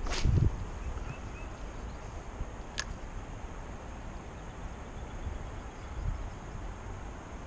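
Outdoor riverside ambience: a steady low rumble and hiss of wind on the microphone, with a heavy bump in the first half-second and a single sharp click about three seconds in.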